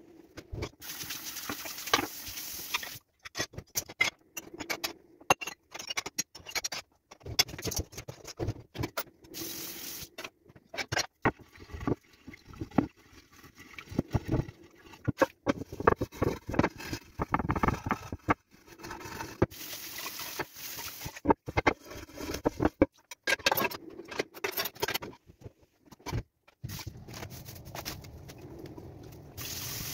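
Kitchen cleanup noise: dishes and a glass baking dish being handled, wiped and scrubbed at the counter and sink, with many knocks and clinks. The sound comes in short stretches broken by several abrupt silences.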